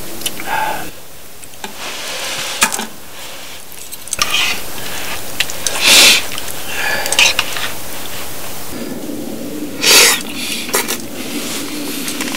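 Sukiyaki simmering in a pot while food is ladled out into a small metal bowl: utensils scrape and clink against the metal pot and bowl several times over a steady simmering hiss, the loudest clinks about halfway through and near the end.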